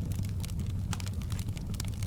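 Wood fire in a fireplace crackling: frequent sharp pops and snaps, several a second, over a steady low rumble of the burning fire.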